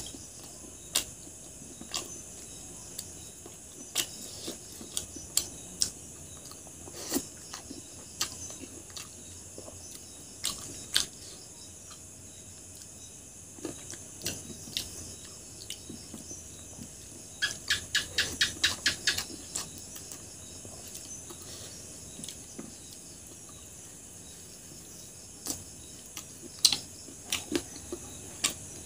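Close-up eating sounds of someone chewing chicken gizzards and rice: sharp mouth clicks and smacks scattered throughout, with a quick run of about ten in the middle and another cluster near the end. Steady high chirring of crickets runs underneath.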